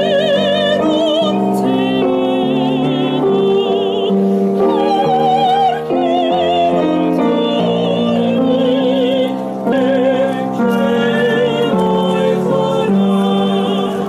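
Opera chorus singers, male and female voices together, singing in full operatic style with wide vibrato on held notes, accompanied by piano.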